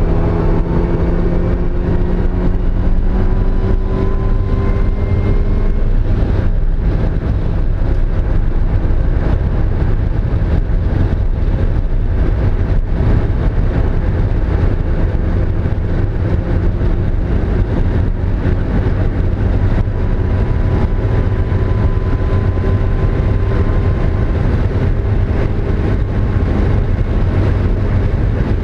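Mazda Miata's four-cylinder engine running under load at speed, heard from on board over road and wind noise; its pitch climbs through the first few seconds, breaks briefly about six seconds in, and climbs again later. The owner reports the engine misfiring on cylinder 2.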